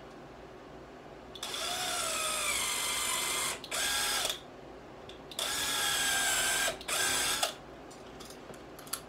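Cordless power driver whining as it drives into a wooden 2x4 shelf frame, in two runs of about three and two seconds, each stopping briefly and starting again near its end, the pitch sagging a little under load as each run begins.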